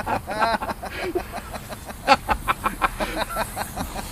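Indistinct voices of several people, short broken-up calls and noises rather than clear talk.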